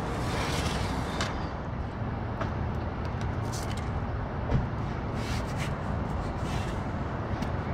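Flexible flashing tape (DuPont FlexWrap NF) crinkling and rustling in short spells as it is bent and pressed into the sill of the opening, with a single light knock about four and a half seconds in. A steady low rumble runs underneath and is the loudest sound.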